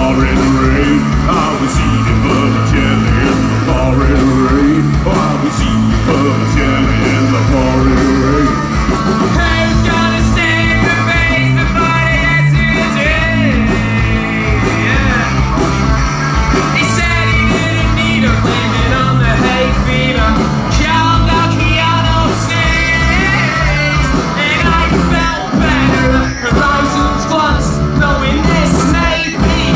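Live rock band playing: electric guitar, bass guitar and drum kit, with a male lead singer whose singing and yelling come to the fore about ten seconds in.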